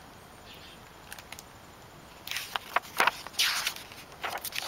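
Paper rustling and flapping as a page of a hardcover picture book is turned, in quick noisy bursts starting about two seconds in.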